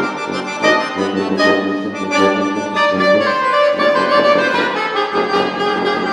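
Accordion, saxophone and tuba playing together as a trio, several sustained notes sounding at once, with new notes entering about every second.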